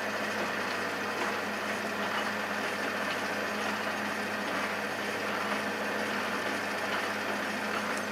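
Metal lathe running steadily with an even motor hum while a twist drill in the tailstock chuck bores a pilot hole into a spinning cast iron wheel.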